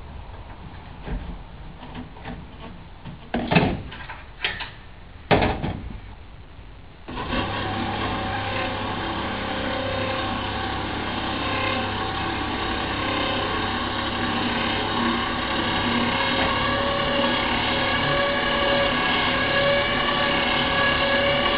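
A few sharp metal knocks and clanks, then about seven seconds in a motor starts and runs steadily with a constant hum as it drives the tilting horse stocks of a mobile equine dentistry trailer down. It grows slightly louder toward the end.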